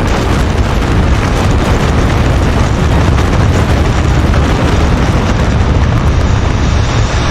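Controlled demolition of a high-rise office tower: a loud, steady rumble of the building collapsing, heaviest in the low end.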